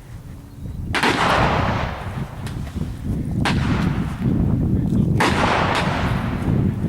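Three shotgun blasts, about a second in, at three and a half seconds and at five seconds, each followed by a long rolling echo.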